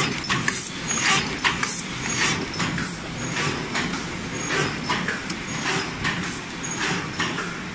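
Paper cup forming machine running: a continuous mechanical clatter of rapid, uneven clicks and knocks, several a second, over a steady running hum.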